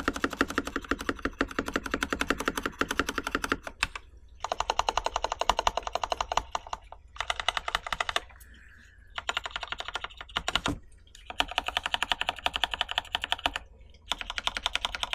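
Typing on an IC Kira mechanical keyboard with stock, unlubed Novelkeys Cream linear switches in a stainless steel plate, under JTK Hana keycaps. Runs of rapid keystrokes come in bursts of a few seconds, broken by short pauses.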